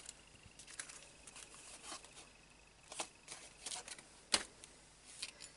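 Soft rustling and scattered light clicks of a clear plastic pocket being handled and moved aside, with a sharper tap a little past four seconds in.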